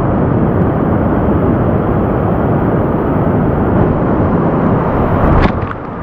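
Whitewater rapids rushing and splashing loudly around a kayak, close to the water, with one sharp splash about five and a half seconds in.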